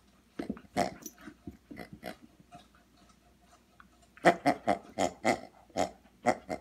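Squeaker of a green latex pig dog toy sounding in short squeezes as a dog mouths it: a few scattered squeaks, then a quick run of about eight, roughly four a second, in the last two and a half seconds.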